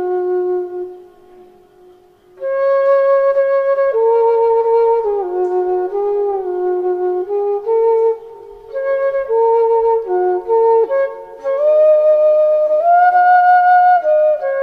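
Background music: a slow melody on a flute-like wind instrument, moving in steps between held notes. It drops out about a second in and comes back just after two seconds.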